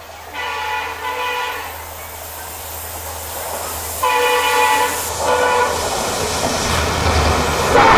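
Horn of an approaching WDP4D diesel locomotive: a blast of about a second and a half, then a louder blast about four seconds in, over a low engine rumble that grows as the locomotive draws alongside. Near the end the rush of the passing train builds.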